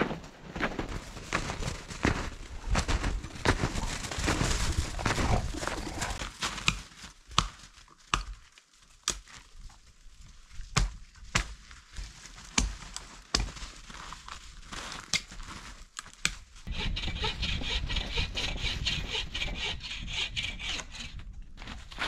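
Snowshoes crunching through deep snow, then a run of sharp cracks as dead lower branches of a conifer are snapped off for firewood. A few seconds of steady scraping follow near the end.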